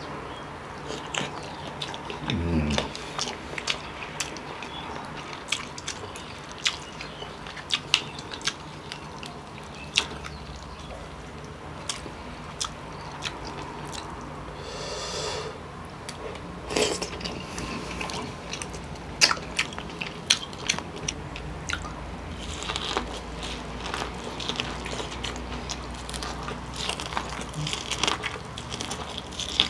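Close-miked eating of steamed king crab: wet chewing and smacking of the crab meat, with many sharp clicks and crackles as shell and meat are pulled apart by hand.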